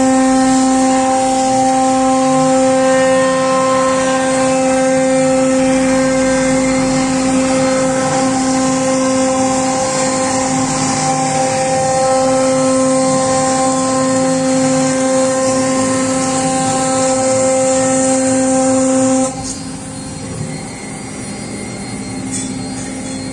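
CNC router spindle cutting an aluminium composite panel: a steady high-pitched whine with a hiss of cutting. About 19 seconds in the sound drops suddenly, leaving a quieter hum.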